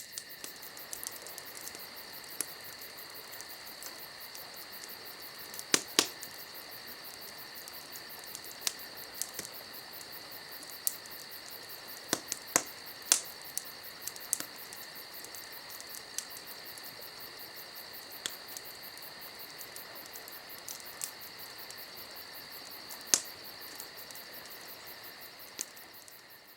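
Crickets chirping in a steady, fast high trill, with scattered sharp clicks and pops; it fades out near the end.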